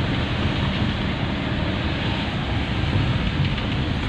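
Steady driving noise heard from inside a moving van's cabin: engine and tyres running on a wet road, an even rush with no sudden events.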